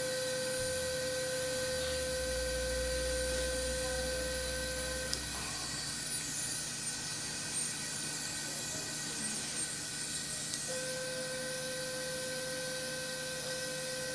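Ellman radiosurgery unit's steady activation tone, sounding while the wire-loop electrode is cutting. It stops about five seconds in and comes back near the end. Under it runs the constant hiss of a smoke evacuator drawing air.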